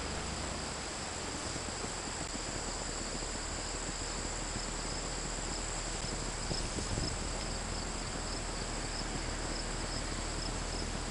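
Steady chorus of insects in summer grass, with two unbroken high-pitched buzzing tones throughout, over a low steady rumble.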